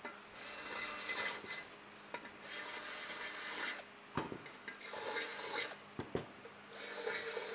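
Electric drill spinning a bit in the bolt holes of an aluminium sump pan, drilling out hardened old silicone. It runs in four short bursts of a second or two each, with light knocks between them.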